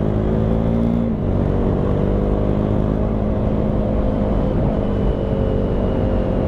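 KTM 390 Duke's single-cylinder engine pulling steadily while the bike is ridden on the open road, with wind rush. The engine note drops slightly about a second in, then holds steady.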